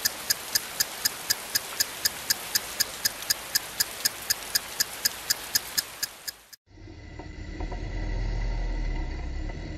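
A clock-like ticking sound effect, about four sharp ticks a second over a steady hiss. About six and a half seconds in it cuts off and gives way to a race car's engine running at a standstill, a low rumble heard from inside the cockpit.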